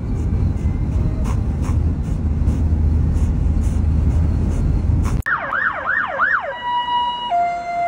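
Wind buffeting and road rumble from a car driving with a window wide open. About five seconds in this cuts off suddenly to a police siren: four fast rising-and-falling yelps, then a steady two-tone hi-lo wail.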